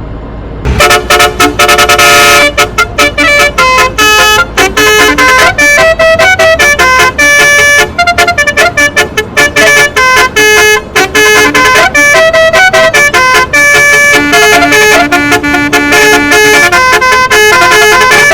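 A loud, fast tune of short horn-like notes, jumping quickly from pitch to pitch.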